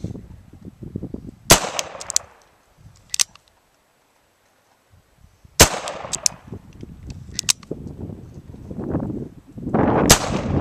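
Ruger GP100 .357 Magnum revolver fired three times, about four seconds apart, each shot followed by trailing echoes.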